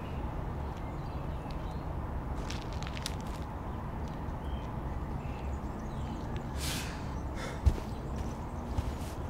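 Steady low outdoor rumble, with a short rustle near seven seconds and then a sharp footstep thud of a shoe on a concrete path, followed by a few lighter steps.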